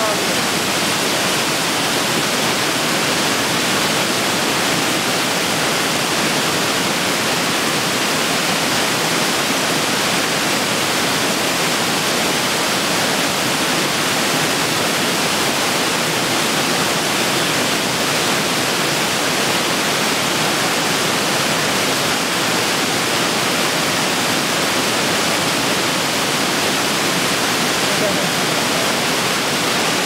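Waterfall: a steady, unbroken rush of falling water with an even hiss across high and low pitches, holding at one level throughout.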